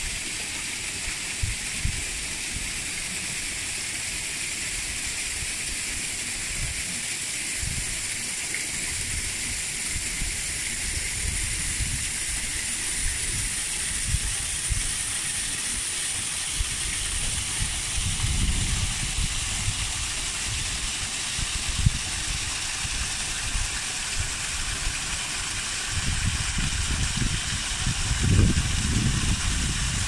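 Mountain stream and small waterfall splashing over rocks: a steady rushing hiss of falling water, with irregular deep rumbles underneath that swell about two-thirds in and again near the end.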